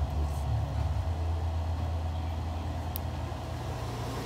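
A low, steady mechanical rumble, with two faint ticks: one shortly after the start and one about three seconds in.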